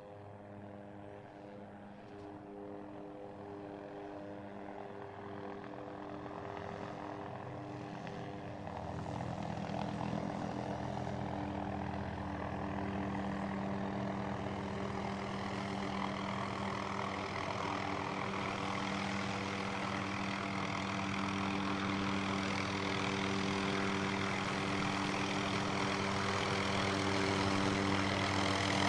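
Helicopter flying, its engine and rotor giving a steady droning hum that grows steadily louder as it approaches.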